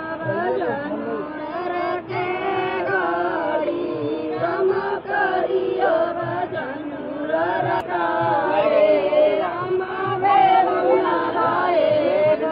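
Several voices singing a devotional chant together, continuously, over a faint steady low beat.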